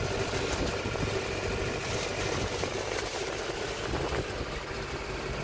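A fishing boat's engine running steadily at idle, a constant low hum.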